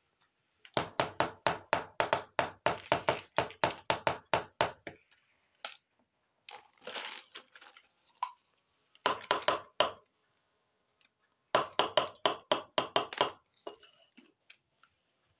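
Runs of sharp plastic clicks, about five or six a second, come in three bursts as small plastic toy kitchen pieces are handled, with a few softer scrapes between.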